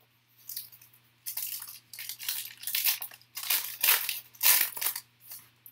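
Red foil wrapper of a trading-card pack crinkling as it is torn open by hand, in a run of uneven rustling bursts.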